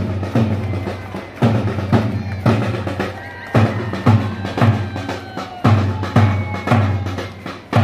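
Marching bass drum beating a steady march time, about two strokes a second, each stroke a deep boom that dies away before the next.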